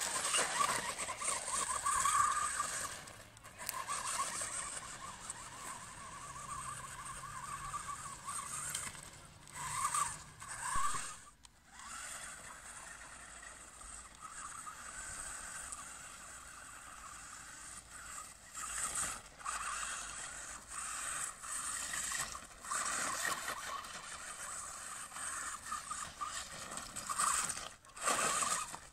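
WLtoys 12428 radio-controlled off-road truck driving over dirt: its small electric motor and gears whine, and its tyres scrape the ground. The sound keeps swelling and easing with the throttle.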